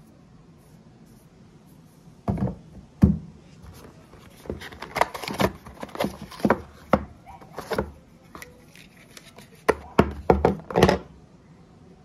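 Cardboard phone box and its inserts handled on a table: a string of sharp knocks, taps and rubbing. It starts about two seconds in and is busiest in the middle and again near the end.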